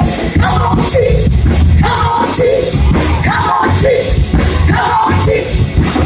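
Live church worship music: singing in short phrases over a loud beat of drums and bass.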